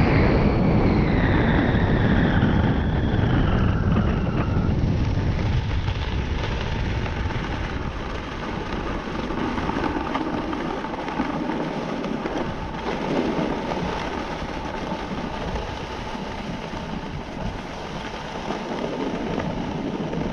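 Wind rushing over the microphone with the hiss of sliding on snow during a downhill ski run. It is strongest at first and eases after a few seconds as the descent slows, and a high tone falls in pitch in the first few seconds.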